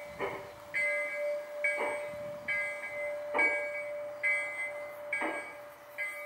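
Model Mogul steam locomotives on a large-scale garden railway, chuffing slowly and evenly, about four exhaust beats, with a locomotive bell ringing steadily between them, about one stroke a second.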